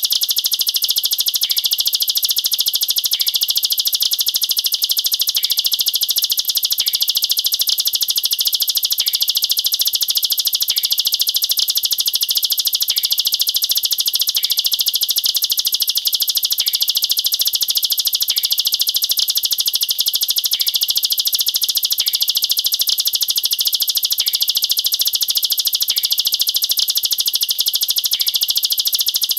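Ciblek sawah (a prinia) singing nonstop, rapid-fire high notes packed tight together: the 'nembak rapat' song, likened to AK-47 fire, used as tutor song for young birds. A faint tick repeats about every two seconds underneath.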